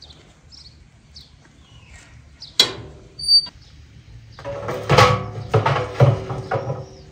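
Metal baking tray clanking and scraping as it is slid into the steel oven of a wood-burning stove: one sharp clank about two and a half seconds in, then a run of ringing metallic knocks and scrapes from about four and a half to six and a half seconds. Birds chirp repeatedly in the first couple of seconds.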